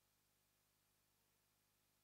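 Near silence: only a very faint steady hiss, with no sound from the match.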